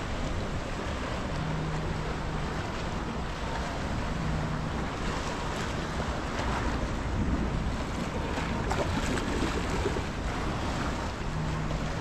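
Surf washing onto a sandy beach, with wind buffeting the microphone. A faint, steady low hum comes and goes three times.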